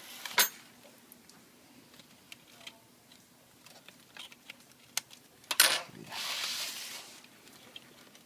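Small sharp clicks and taps of laptop parts and tools being handled on a workbench, with a louder click about half a second in and a short rustling scrape near the end.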